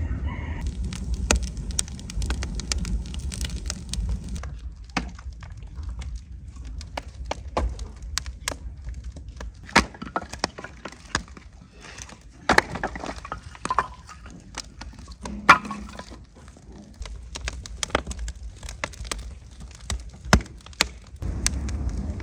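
Wood fire burning in a pit in the ground: many sharp, irregular crackles and pops from the burning firewood over a low rush of flames, the rush strongest near the start and again near the end.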